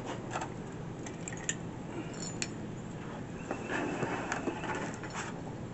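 Scattered light metallic clinks and taps of hand tools and small metal parts being handled, some with a brief ring, over a low steady hiss.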